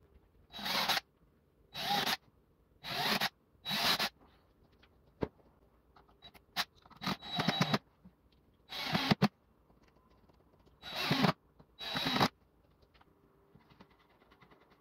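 Craftsman cordless drill run in about nine short bursts, each under half a second and swelling as it goes, boring into pine boards, with a few sharp clicks between the bursts.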